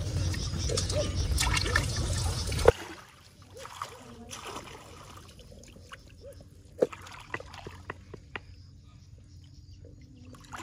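Water trickling and splashing in small, scattered spurts and drips. For the first few seconds a loud low rumble covers it, then cuts off suddenly.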